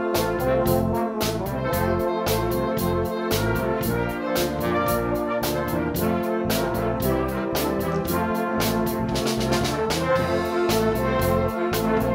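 A wind band playing a piece together, with trumpets and trombones to the fore and saxophones among them. It runs over a moving bass line and a steady beat.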